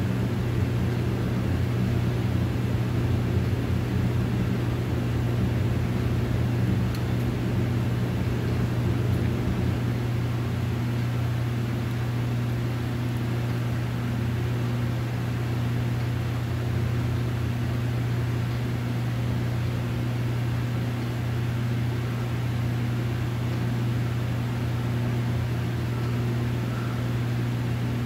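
Steady low mechanical hum with an even hiss above it.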